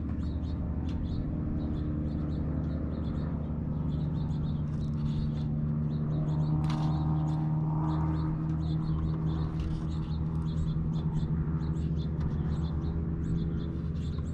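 A steady low machine hum made of several even tones, with rapid high chirps repeating throughout.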